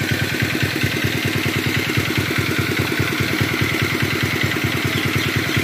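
Engine of the pump draining the pond, running steadily with a fast, even chugging beat.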